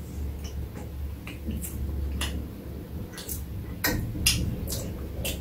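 Metal chopsticks clicking and tapping against a plastic food container as kimchi is picked out: a scattering of short, sharp clicks at uneven intervals.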